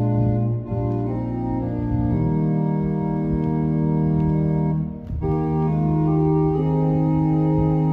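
Organ playing sustained chords that change every second or two, with a brief break about five seconds in: music after the closing prayer of a church service.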